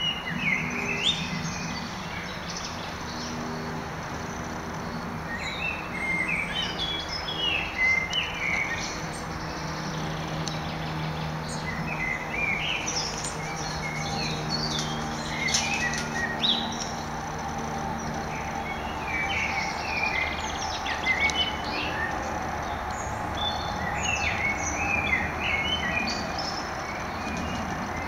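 Garden songbirds singing in repeated short, chirping phrases, over a steady low hum.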